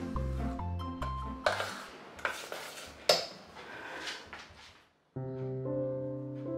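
A metal spoon scraping and clinking against a stainless steel saucepan while stirring thick custard, with one sharp clink about three seconds in. Background music plays at the start and starts again after a brief silence near the end.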